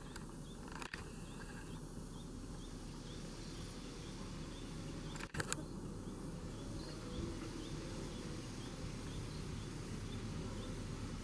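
Open-air background with a steady low rumble, over which a small creature chirps repeatedly, about two or three short chirps a second, fading out in the second half. A pair of brief clicks sounds about five seconds in.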